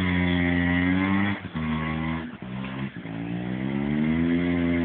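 Small 50cc ATV engine running, its pitch dropping about a second and a half in and staying lower for a second or so, then climbing steadily as the throttle opens again, easing off near the end.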